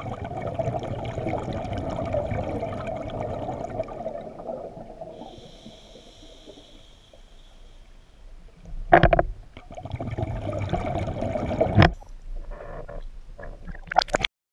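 Scuba diver breathing through a regulator, heard underwater: a long rush of exhaled bubbles, a steady hiss of inhalation about five seconds in, then more bubbles. Two sharp loud knocks come around nine and twelve seconds in, and the sound cuts off suddenly at the end.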